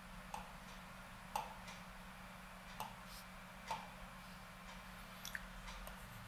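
About five faint, sharp clicks at uneven spacing, a second or so apart, over a steady low electrical hum in a quiet room.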